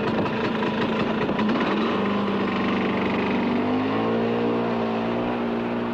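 A motor vehicle engine running steadily, then revving up with its pitch rising from about two seconds in.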